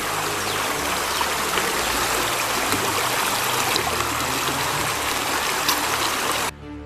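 Stream water rushing steadily, loud and even, cutting off abruptly near the end.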